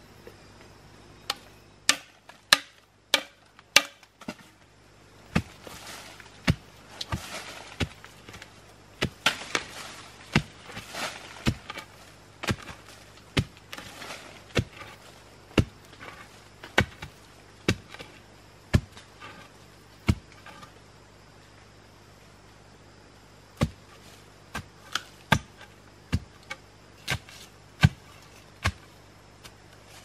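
A long bamboo pole jabbed repeatedly into the ground as a digging stick, a sharp thud about once a second with loosened dirt and dry leaves scraping between strokes. The strokes stop for a few seconds past the middle, then start again.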